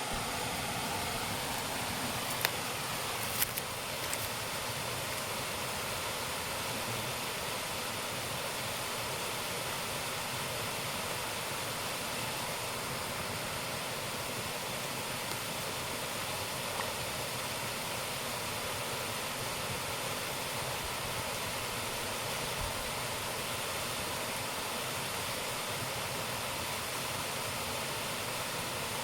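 Waterfall rushing in a steady, even roar of falling water, with a few sharp clicks a few seconds in.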